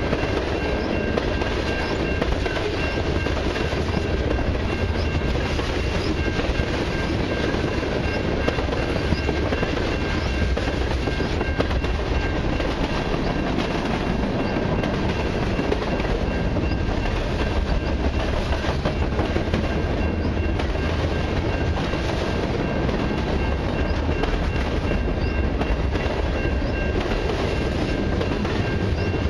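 Freight train cars (tank cars and gondolas) rolling past close by: a steady rumble of steel wheels on rail with clickety-clack over the rail joints. Two faint steady high tones run underneath.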